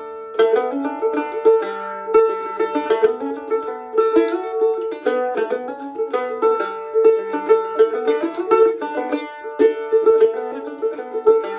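Solo instrumental tune played on a plucked string instrument: a quick, even stream of notes that ring over one another.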